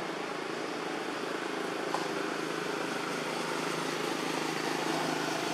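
Steady background hum and hiss with a faint low drone, like distant engine noise, and a faint click about two seconds in.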